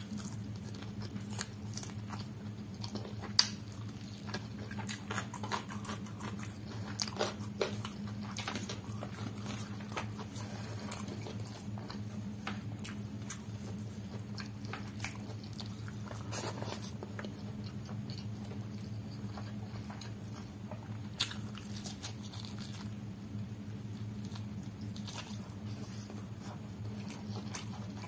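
Close-miked chewing and wet mouth sounds of someone eating rice and chicken curry: irregular smacks and small clicks, with one sharper click about three and a half seconds in, over a steady low hum.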